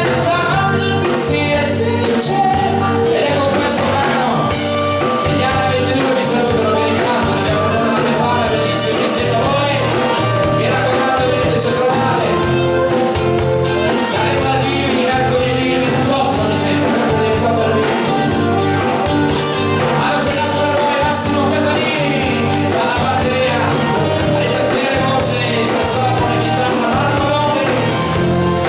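Live band playing an upbeat dance number with sung vocals over drum kit, guitars and keyboards.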